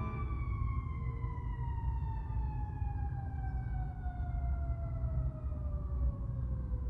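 A siren outside, one long wail winding slowly down in pitch.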